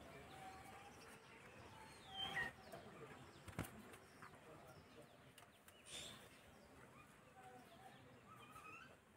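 Faint bird chirps and calls, several short gliding notes, with a single sharp click about three and a half seconds in.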